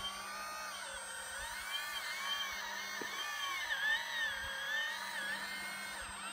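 Hydraulic pump motor of a radio-controlled scale excavator whining as the boom, arm and bucket work, its pitch rising and falling again and again, over a steady low hum.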